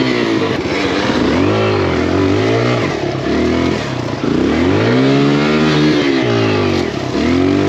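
Kawasaki KLX140 dirt bike with a 170cc big-bore kit and BBR exhaust, its single-cylinder four-stroke engine revved in repeated bursts, each rising and falling, about every two seconds, as it labours up a steep, brushy climb.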